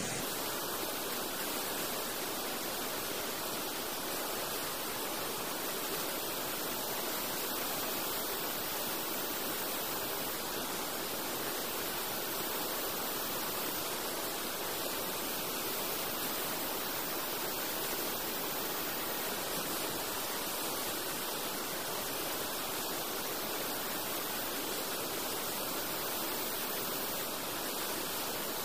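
Steady, even rush of a river in flood.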